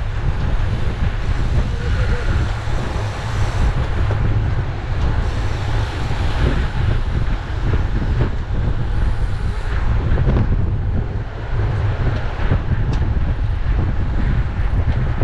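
Steady wind buffeting on a bike-mounted camera's microphone at race speed: a constant low rumble with a noisy hiss over it.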